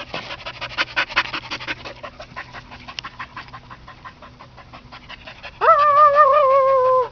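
Blue heeler panting hard in quick, even breaths as it runs pulling a tire swing. Near the end a loud, long, wavering cry lasts about a second and a half, then stops suddenly.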